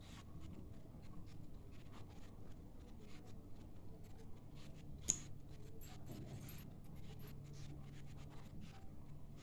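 Faint handling sounds of a plastic liquid-lipstick tube being turned in the hands and its screw cap unscrewed: small clicks and rubs throughout, with one sharper click about five seconds in.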